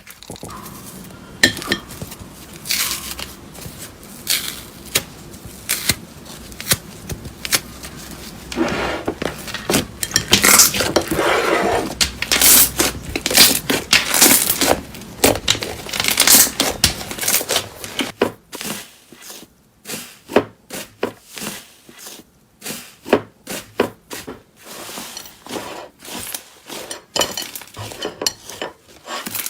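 Slime being pressed, poked and stretched by hand, giving a stream of wet crackles, pops and clicks. The crackling is dense through the middle, then turns into sharper, spaced clicks.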